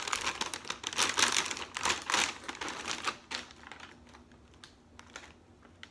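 Large plastic cereal bag crinkling and crackling as hands pull and work its sealed top open, dying down after about three seconds.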